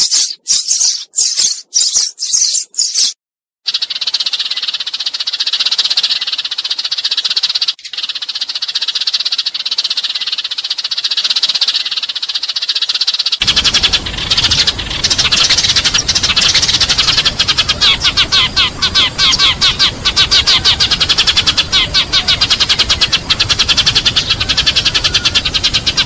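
A recorded sparrow flock call, many sparrows chirping and chattering, played as a lure to bring a flock in. For the first few seconds there are separate chirps, then dense chatter. About halfway through it switches abruptly to a different recording: rapid, evenly repeated chirps over a steady hiss.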